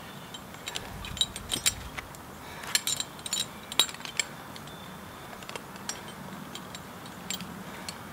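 Metal climbing hardware clinking, carabiners and a rescue-eight descender knocking together as the rope is wrapped onto the descender to rig a descent: scattered light clicks and clinks, in small clusters.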